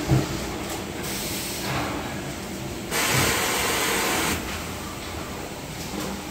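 Factory floor ambience: a steady background of machinery noise, with a sharp knock right at the start and a loud hiss lasting about a second and a half midway.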